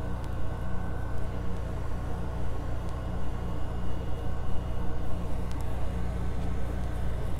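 A steady low hum with a faint, thin high tone above it, and a few faint clicks.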